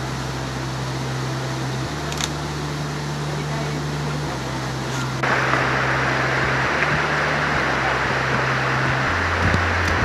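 Rushing river water running over rocks and rapids, growing louder about five seconds in, under background music whose low notes step from one pitch to another every second or two.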